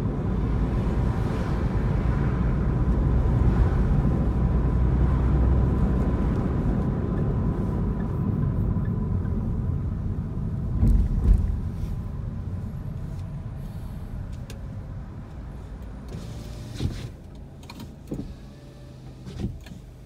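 Road and engine noise inside a moving car: a low rumble with a faint steady whine, which dies away over the second half as the car slows. A few short knocks come near the middle and near the end.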